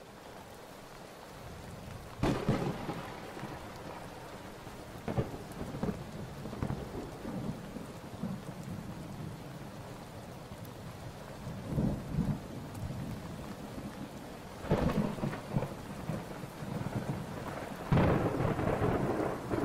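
Typhoon storm: steady heavy rain and wind noise, with loud rumbling swells every few seconds that get louder near the end.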